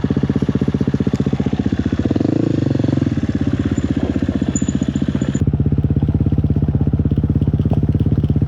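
Four-stroke enduro dirt bike engine idling with an even, steady pulse, swelling briefly about two seconds in. About five seconds in, the sound suddenly turns duller.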